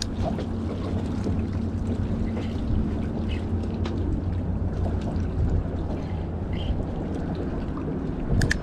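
Steady low rumble of wind and water around a small boat, with a faint droning hum in the first half and a short click near the end.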